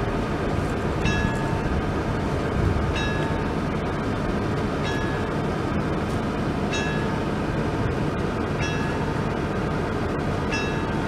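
Level-crossing warning bell striking a short ringing ding about every two seconds, over a steady rumbling noise.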